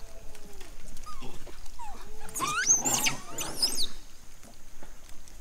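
Long-tailed macaques calling while feeding: a few short, soft calls, then a burst of high, wavering screams that rise and fall, from about two seconds in to about four.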